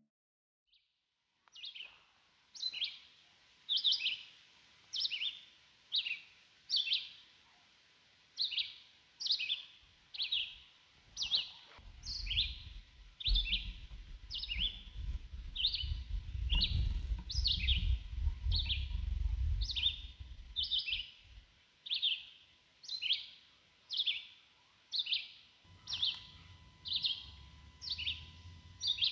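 A bird calling over and over: a short, high, falling chirp repeated about once a second.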